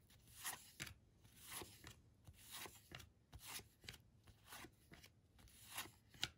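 Faint swishes of cardboard baseball cards being slid off a hand-held stack one at a time, about one a second.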